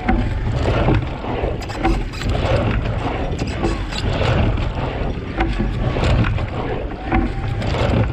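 Water lapping and splashing against the hull of a single rowing scull close to the microphone, with an oar blade stirring the water and wind rumbling on the microphone. The splashes come about once a second.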